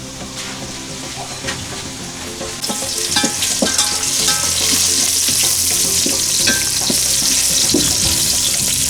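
Onions frying in hot cooking oil and being stirred, with clicks of the spoon against the pan; the sizzle grows much louder about two and a half seconds in and stays loud.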